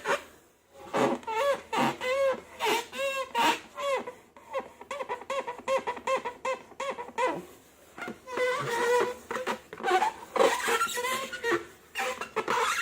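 A high-pitched, squeaky cartoon-style voice giggling and chattering in quick repeated notes, with a couple of short pauses.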